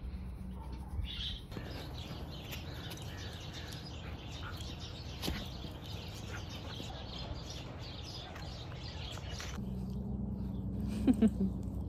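Outdoor ambience with small birds chirping now and then over a steady low hum. Near the end come a few short, sharp, louder sounds with brief pitched squeaks.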